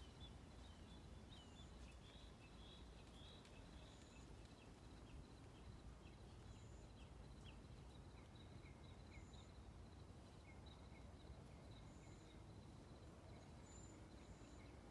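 Faint morning birdsong: several birds giving short chirps, with one high, thin note repeated about every second and a half. Under it runs a low outdoor rumble and a faint steady high tone.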